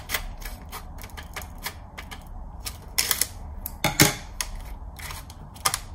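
Clear plastic blister pack crackling and clicking as it is handled and cut open with scissors, with louder snaps of the plastic about three and four seconds in.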